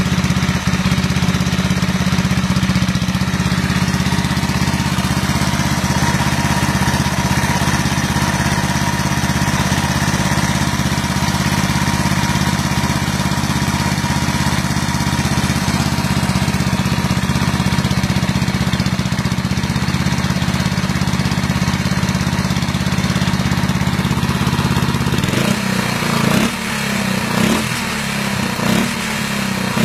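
An engine idling steadily; in the last few seconds it is revved up and back down a few times.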